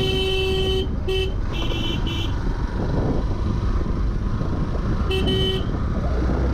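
Vehicle horn honking: one long honk, then three quick toots within the next second and a half, and another short honk about five seconds in. Steady wind and motorcycle engine rumble run underneath.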